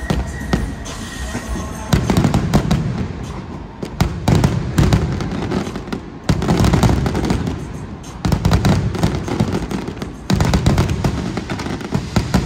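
Aerial fireworks firing in rapid barrages of crackling bangs and booms, starting about two seconds in and surging again in waves roughly every two seconds.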